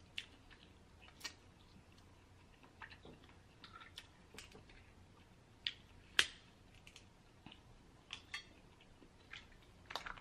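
Snow crab leg shells being cracked and picked apart by hand: scattered sharp clicks and crackles, the loudest about six seconds in.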